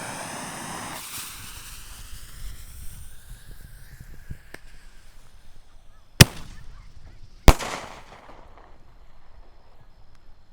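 A 1-inch mini artillery firework shell firing from its tube. The fuse hisses for the first second or two, then a sharp launch report comes about six seconds in, followed about a second later by a louder bang with an echo as the shell breaks.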